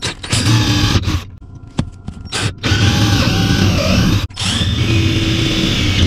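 Cordless drill with a 3/16-inch bit boring out a hole in a car's pedal, stepping the hole up in size. A burst of about a second, a pause, then near-continuous drilling from about two and a half seconds in, broken briefly just past four seconds, with the motor's whine wavering.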